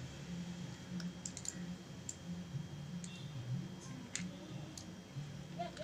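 A few light, scattered clicks, about half a dozen spread unevenly, over a low steady hum.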